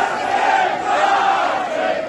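Crowd of AFL football supporters chanting loudly together, many voices in unison.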